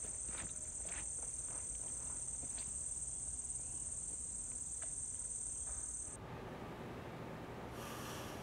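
Steady, high-pitched insect chorus that cuts off suddenly about six seconds in, leaving a faint hiss.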